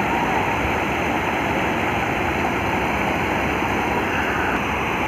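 Water spilling over a low weir, a steady rushing noise.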